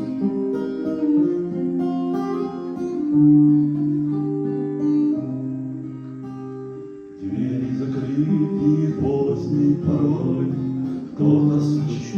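Instrumental introduction to a Christian song, led by guitar: long held chords at first, then a fuller accompaniment comes in about seven seconds in.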